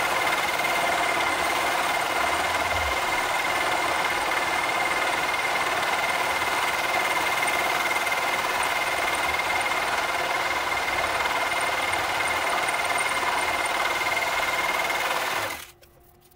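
Milling machine running with a T-slot cutter cutting a slot in a metal block: a steady mechanical cutting noise with a constant high whine, cutting off sharply near the end.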